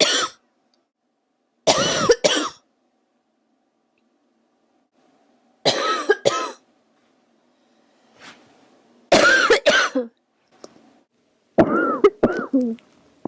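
A girl coughing in four bouts of two or three coughs, one bout every three to four seconds, each cough with a high pitch of her voice in it.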